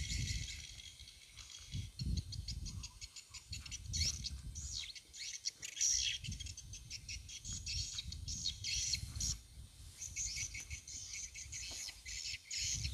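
Small birds chirping in rapid, short notes, with a low rumble underneath.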